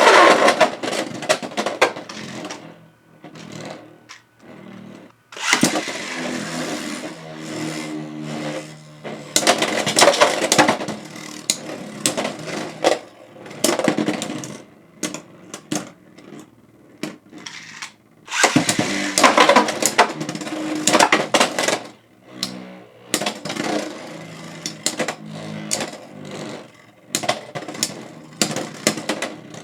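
Beyblade X spinning tops battling in a plastic stadium: bursts of rattling clashes and scraping with a humming whir from the spinning tops, several rounds separated by brief quieter pauses.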